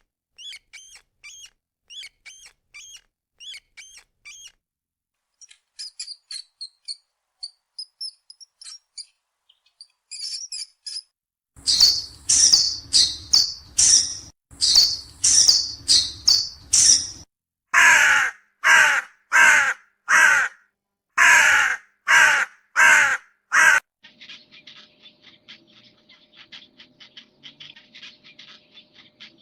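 Birds calling: soft, high chirps and twitters at first, then, from a little before halfway, a run of loud calls repeated about once a second. Near the end there is only a faint crackling with a steady low tone.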